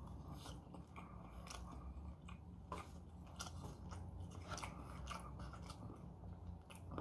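Close-up chewing of a mouthful of Chinese barbecue meat: wet mouth sounds with many scattered, irregular clicks, over a faint low steady hum.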